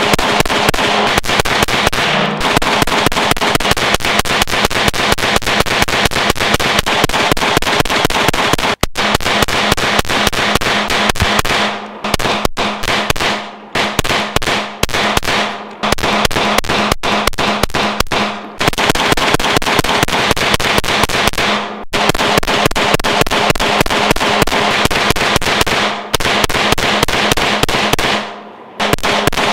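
Glock 45 9mm pistol fired as fast as possible in long rapid strings of shots, broken by several short pauses, in a high-volume burn-down meant to get the gun hot. Background music runs underneath.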